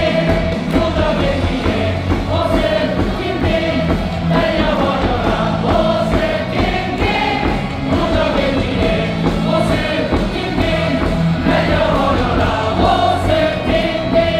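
Baseball crowd singing a cheering chant in unison over the stadium's loudspeaker music, which carries a steady bass line.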